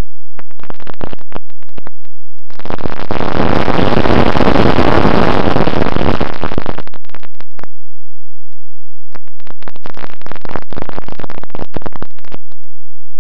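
Harsh, distorted noise that cuts in and out in bursts, with near-silent gaps between them. The longest and loudest burst falls in the middle, and a stretch of short choppy bursts comes near the end.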